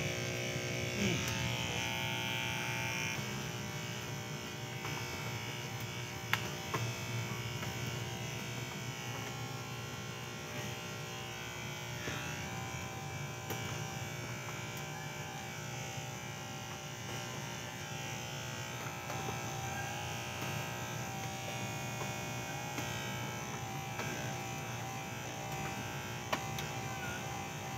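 Electric hair clippers running steadily while cutting hair.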